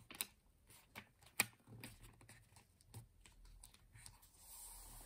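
Handling of a large paper sticker on a planner page: several light clicks and taps of fingernails on paper, then a soft paper rustle near the end as the sticker is peeled from its backing and pressed down.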